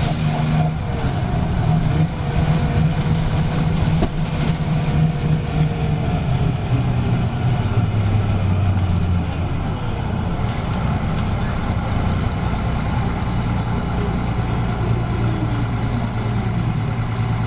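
Detroit Diesel 6V92TA two-stroke V6 diesel of a 1985 GMC RTS transit bus idling, a steady low engine note that shifts slightly in pitch about halfway through.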